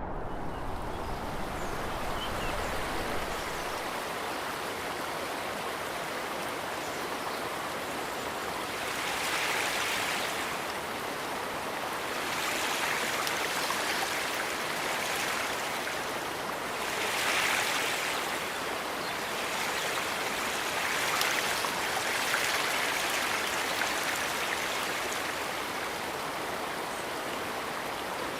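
Rushing river water: a steady rush that swells louder several times, around a third of the way in, near the middle and again after about three quarters of the way through.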